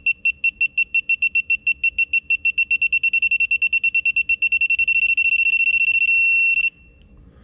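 ACDelco digital torque adapter beeping as a connecting-rod bolt is tightened toward its 45 ft-lb target. A high beep repeats at about five a second, then faster and faster as the torque nears the setting. A little past six seconds in it turns into one steady tone, the signal that the target torque is reached, and this cuts off about half a second later.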